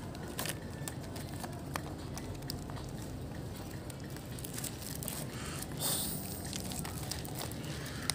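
A plastic tying strip rustling and crinkling, with scattered small clicks, as a mud crab's claws are bound by hand. The strongest rustle comes about six seconds in, over a steady low rumble.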